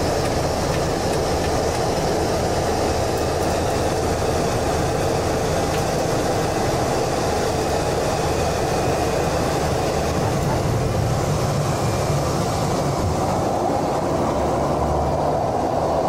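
Light aircraft's engine and airflow noise heard from inside the cockpit, a steady dense rumble through final approach and the landing roll.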